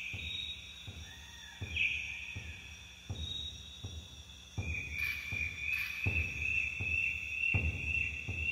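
Insects chirring in steady high-pitched tones that start and stop, over a run of low thuds.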